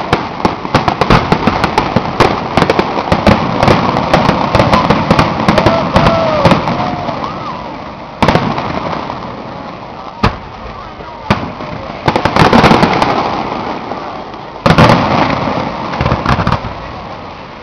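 Aerial firework shells bursting. For the first several seconds the bangs and crackling come thick and fast. After that, single heavy bangs fall a second or two apart, with a louder rumbling volley about twelve seconds in.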